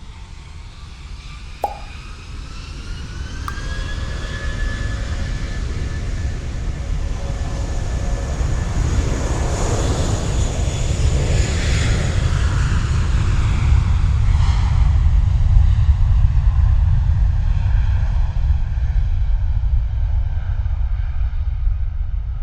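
Airbus A320-232's twin IAE V2500 turbofans at takeoff power: a whine rises in pitch over the first few seconds, then a deep rumble builds and is loudest a little past halfway, easing slightly near the end as the jet goes by. A single sharp click about two seconds in.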